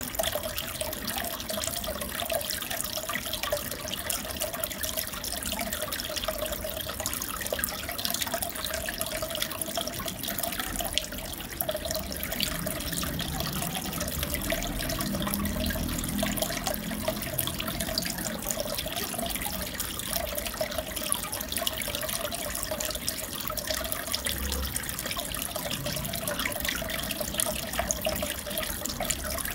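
Aquarium water trickling and bubbling steadily, full of small crackling ticks, with a wavering hum underneath.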